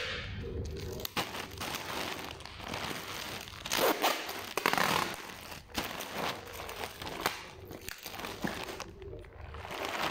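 Brown packing tape ripping off its roll in rasping pulls, with a plastic mailer bag crinkling and rustling as it is wrapped and taped; the longest, loudest tape pull comes about four to five seconds in.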